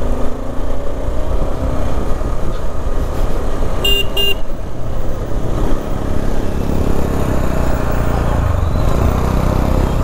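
Motorcycle riding noise, a steady low rumble of engine and wind, with a vehicle horn tooting twice briefly about four seconds in.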